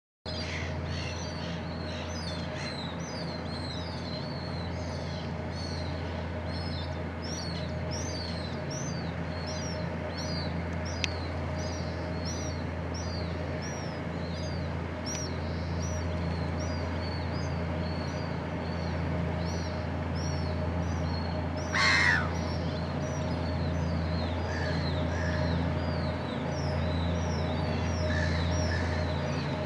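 Harbour tug's diesel engine running with a steady low drone, under constant rapid chirping of small birds. About two-thirds of the way through, one loud bird call stands out briefly.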